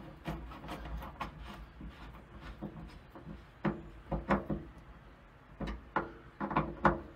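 Irregular clicks, knocks and scrapes of a screwdriver working at the rear corner bracket of a VW Beetle's steel sunroof panel. They are sparse at first, then come in louder clusters in the second half.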